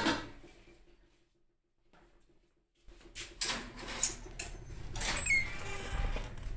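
A steel ladle clinks against a wok at the start. After a short quiet gap come knocks and rustling, and a brief squeak about five seconds in as a mesh screen door is pushed open.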